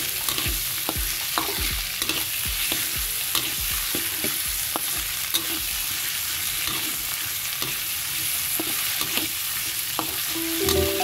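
Metal spatula scraping and clinking against a pan as onions and tomatoes stir-fry in sizzling oil. The scrapes come irregularly over a steady sizzle.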